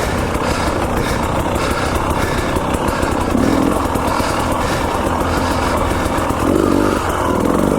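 KTM 300 XC-W TPI fuel-injected two-stroke dirt bike engine running as the bike is ridden, with two short swells in revs about three and a half and six and a half seconds in.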